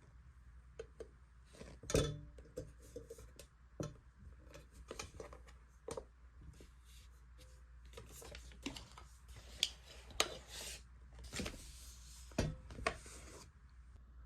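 Small objects being handled close to the microphone: a run of light clicks, taps and rustles, with sharper knocks about two seconds in and again near the end.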